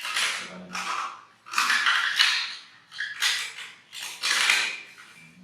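Baby monkey coughing hard, five or so noisy, rasping bursts in quick succession.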